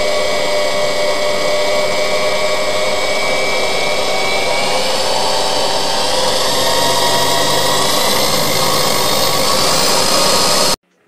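Electric motor of a homemade 700-watt lathe running steadily with a whining, multi-tone hum, some tones slowly rising in pitch in the second half. It cuts off suddenly near the end.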